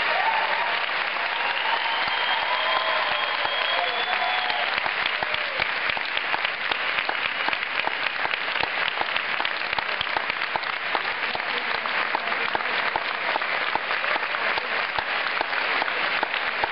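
A large audience applauding, with dense, steady clapping throughout.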